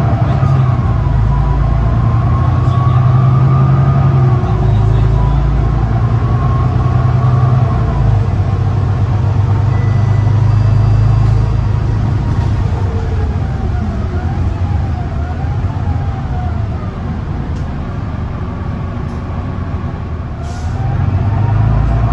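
Volvo B9TL double-decker bus heard on board: the 9-litre six-cylinder diesel running under a steady low drone, with a drivetrain whine that rises and falls with road speed. The bus eases off for a few seconds near the end, then pulls away again with the whine climbing.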